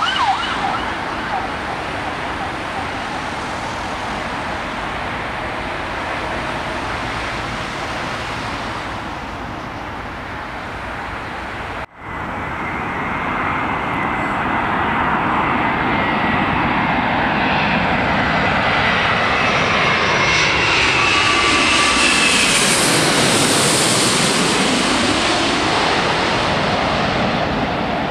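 Twin-engine jet airliner's engines giving a steady rush of noise as it rolls out on the runway after landing. Then a jet airliner on final approach grows louder as it comes in low overhead, its engine whine falling in pitch as it passes.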